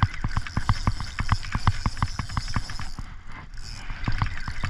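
Fishing reel clicking rapidly and fairly evenly, about six or seven clicks a second.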